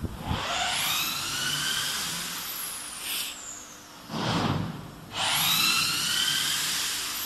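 A small electric motor whines as it spins up and slowly winds down, twice, with a short clatter between the two runs.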